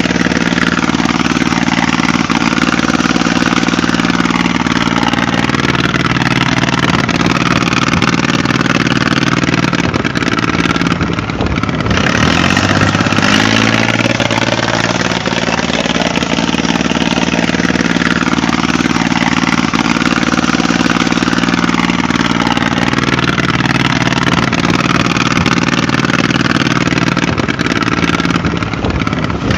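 An engine running steadily, with a short break and change in pitch about 11 seconds in.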